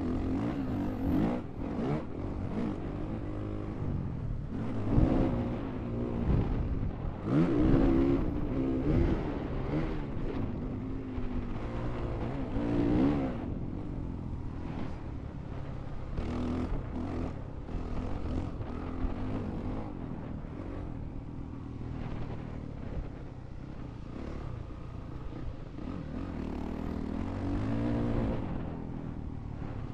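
Honda CRF450R's single-cylinder four-stroke engine under riding load, its revs rising and falling again and again, with louder pulls about 5, 8 and 13 seconds in and near the end.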